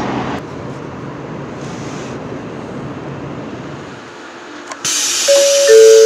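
Steady rushing running noise of a Shinkansen bullet train at high speed, heard inside the passenger cabin. Near the end this gives way to a brighter hiss, and a chime-like melody of two alternating notes begins.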